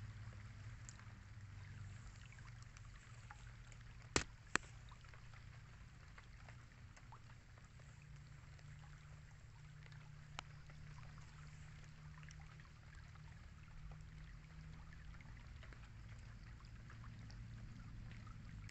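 Faint riverside ambience of flowing water and light drizzle under a low steady hum, with two sharp clicks close together about four seconds in and a softer one near ten seconds.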